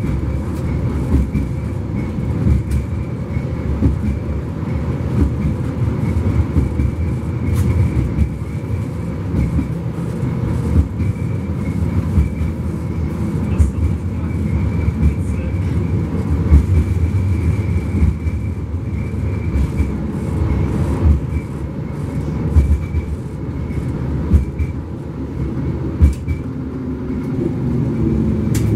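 71-134K (LM-99K) tram running on its rails, heard from inside the car: a steady low rumble with scattered clicks and knocks from the wheels and track, and a steady high whine that fades out about two-thirds of the way through.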